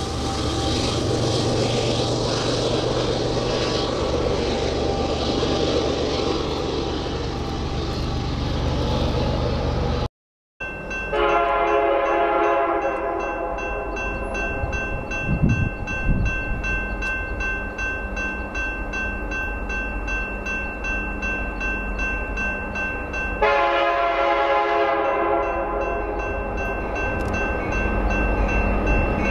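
A loaded coal train runs by with a low, steady rumble from its diesel locomotives and cars. After a short break, a diesel locomotive horn sounds long and steady from a train still out of sight, swelling louder about two-thirds of the way through.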